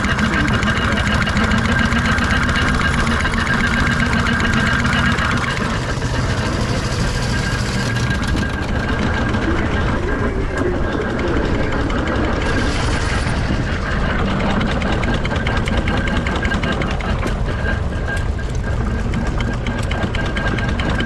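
Miniature steam traction engine running, its motion clattering in a rapid, steady rhythm.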